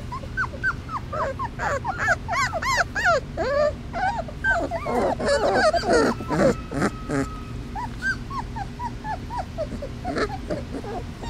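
A litter of three-week-old Basset Hound puppies crying for their mother: many short, high whimpers that rise and fall, overlapping from several pups at once. The crying grows louder and denser about halfway through, as one pup comes close.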